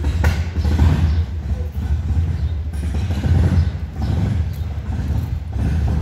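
Harley-Davidson V-twin motorcycle engine idling, a steady, deep exhaust note.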